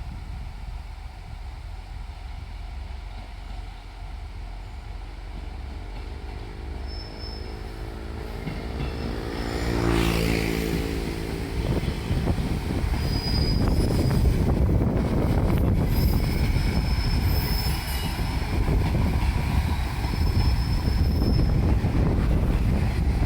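Diesel railcar train approaching and passing close by. The noise swells to a peak about ten seconds in, then the wheels on the rails run loud and steady, with short high wheel squeals now and then.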